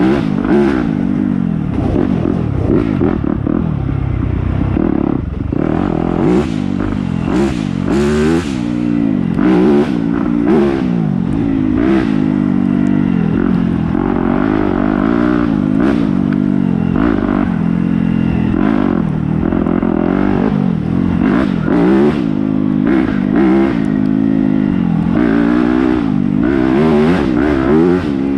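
Dirt bike engine being ridden hard along a rough trail, its pitch rising and falling every second or so as the throttle is worked, with frequent short knocks and clatter.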